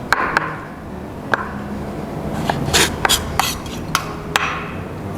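Kitchen knife and tomato pieces clicking and knocking on a cutting board in irregular sharp taps, with a couple of short scraping swishes.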